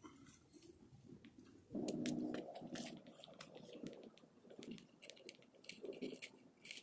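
Rustling and crackling of pine boughs being handled and pushed into place on a wooden trellis, with scattered small clicks; a louder, lower rustle comes about two seconds in and lasts about a second.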